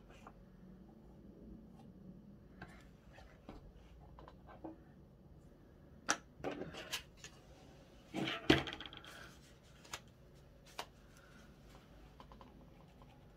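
Light scrapes, taps and clicks of a plastic card working car body filler on a small plastic tray and onto a painted metal clock dial. A few sharp clicks, with the loudest scrape and knock a little past halfway.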